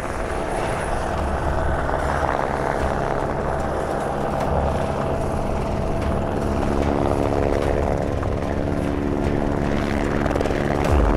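Light helicopter hovering, its rotor running steadily.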